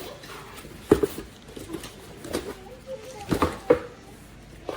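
Shower head parts and packaging being handled: a sharp knock about a second in and a short run of clicks and knocks a little after three seconds, with a few brief squeaks.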